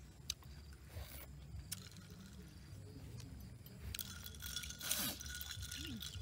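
A metal spoon stirring a drink in a glass, clinking and ringing against the glass from about four seconds in, with a few light clicks before it.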